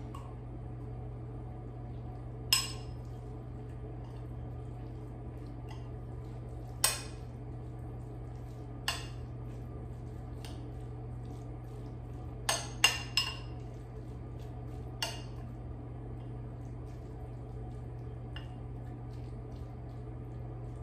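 Metal spoon clinking against a glass bowl while noodles are stirred: scattered sharp clinks, three in quick succession a little past halfway, over a steady low hum.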